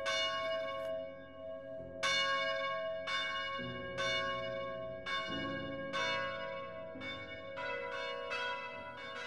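Church bells chiming: a run of struck notes at different pitches, a new stroke about once a second, each ringing on over a steady sustained tone.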